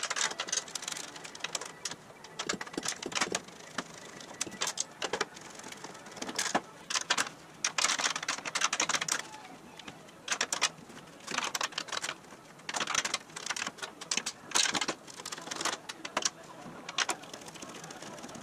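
Metal clicking and scraping as the bolts along the bottom of an aluminum body panel on a steel frame rail are worked with an L-shaped hex key. It comes in irregular bursts, some of them rapid runs of clicks.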